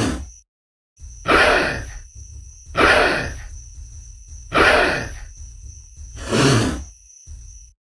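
Baby Tyrannosaurus rex creature sound effect: the end of one call, then four calls, each starting suddenly and fading over about a second, spaced about one and a half to two seconds apart, with a faint thin high tone held beneath them.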